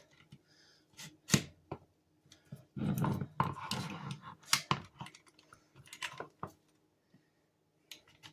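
Hard clicks and knocks from handling a Hart heavy-duty staple gun while trying to load a strip of staples into its all-metal magazine, with a rattling, scraping stretch about three seconds in and scattered lighter clicks after it. The staples are not going in: the gun will not load.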